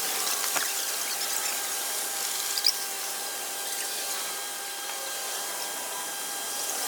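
Steady mechanical hum with a high hiss and a few faint clicks.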